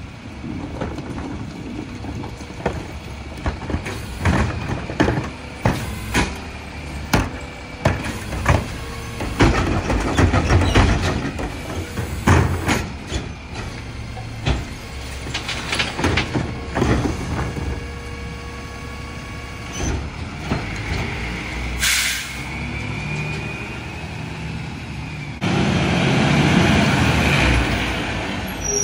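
Mack LR McNeilus rear-loader garbage truck running at the curb while recycling carts are tipped into its rear hopper: a string of sharp bangs and clatters of carts and recyclables through the first half. About three quarters in there is a short air-brake hiss, and near the end the truck's noise rises as it pulls away.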